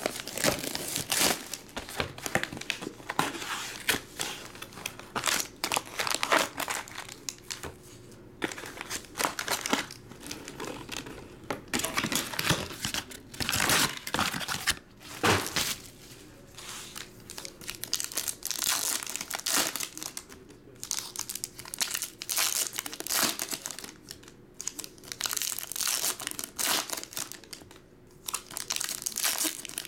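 Plastic shrink-wrap and foil card-pack wrappers crinkling and tearing as a box of trading cards is unwrapped and its packs opened, in irregular bursts of rustling.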